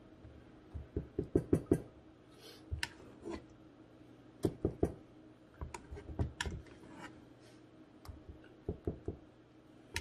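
A spatula knocking and scraping against the sides of a stainless steel stock pot while thick hot process soap paste is scooped out, in uneven clusters of short knocks.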